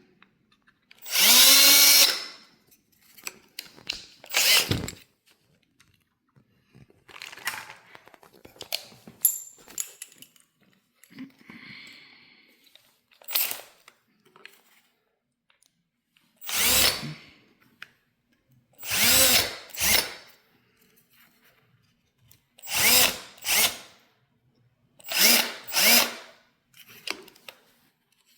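Electric drill/driver run in about a dozen short bursts, its motor whirring up in pitch at the start of each, with pauses between.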